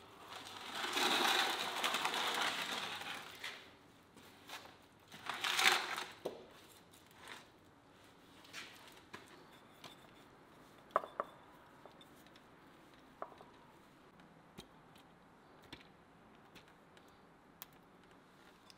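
Metal baking tray dragged across the stone hearth of a brick oven as it is pulled out, a long scrape followed a few seconds later by a second, shorter one. After that come only quiet handling sounds with a few light clicks.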